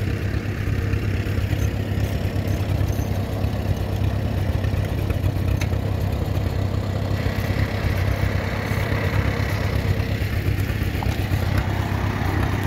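An engine running steadily at an even, low note, with no change in speed. A faint high whine joins about halfway through.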